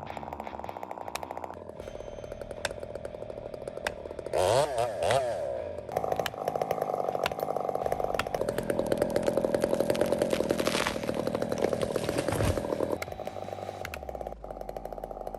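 Chainsaw running at high revs, its note stepping down and back up several times as it works through wood, with a quick rev up and down twice about four to five seconds in.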